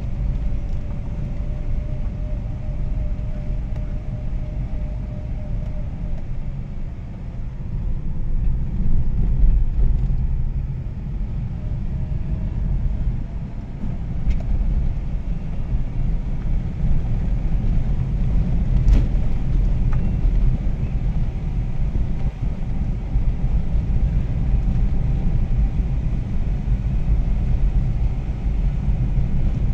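Steady low rumble of a vehicle's engine and tyres on a dirt forest track, heard from the moving vehicle, with a couple of brief knocks about halfway through.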